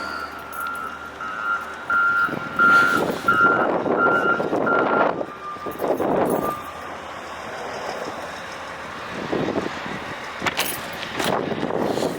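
A vehicle's electronic beeper sounding a row of evenly spaced high beeps, about one every two-thirds of a second, stopping about five seconds in. Rushing bursts of vehicle noise come over and after it.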